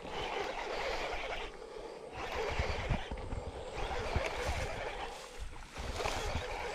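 Rustling handling noise and wind buffeting on a body-worn camera microphone as a baitcasting rod and reel are worked. It comes in bursts of a second or so with short pauses between them.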